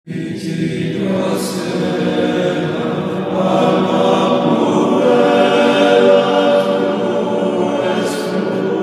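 Choral chant music: several voices holding long sustained notes, starting abruptly at the beginning.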